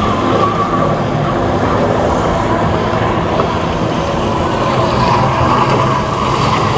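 Boat engines running steadily, a continuous mechanical drone with no clear breaks.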